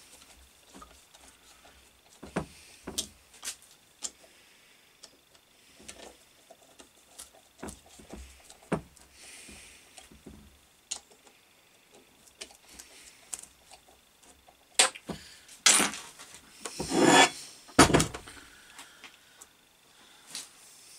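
Hand tool clicking and scraping as the bolts of a reassembled single-phase electric motor are tightened, then a few louder knocks and scrapes about 15 to 18 seconds in as the metal motor casing is turned over and set down on the bench.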